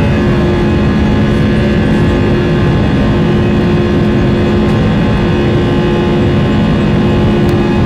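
Airbus A320 cabin noise in flight: the steady rush of the engines and airflow heard from a passenger seat, with a steady low hum under it.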